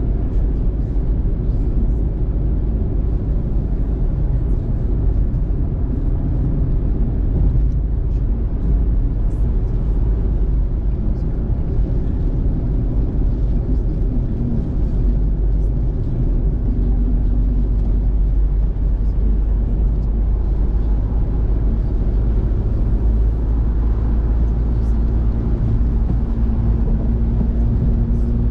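Car driving on a wet road, heard inside the cabin: a steady low rumble of engine and tyre noise, with faint light ticks above it.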